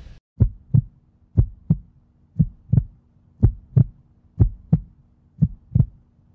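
Heartbeat sound effect: pairs of short deep thumps, lub-dub, about one pair a second, over a faint low steady hum.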